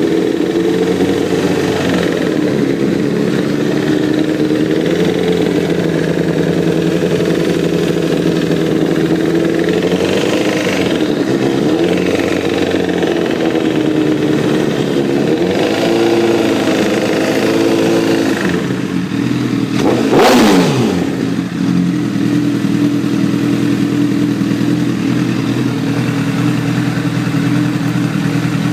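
2009 Repsol motorcycle engine running at idle with the ticking noise that the owner is chasing. The revs rise and fall gently a couple of times, and about twenty seconds in there is a brief louder burst whose pitch drops quickly.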